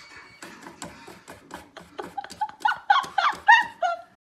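A person laughing in quick, breathy pulses that build into louder, high-pitched laughter over the last second and a half, then cut off abruptly.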